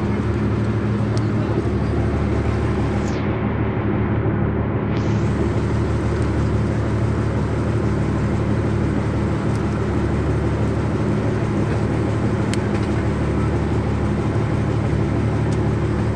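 Engine of a motorized outrigger fishing boat running at a steady, unchanging speed: a constant low hum.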